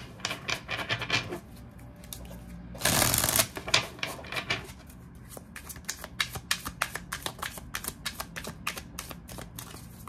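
A large tarot deck being hand-shuffled, cards flicking and slapping against each other in quick runs of sharp clicks, with a louder rush of cards sliding together about three seconds in.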